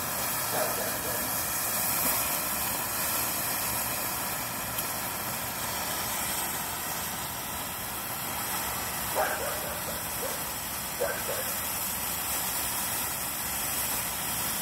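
Ground fountain firework spraying sparks with a steady rushing hiss.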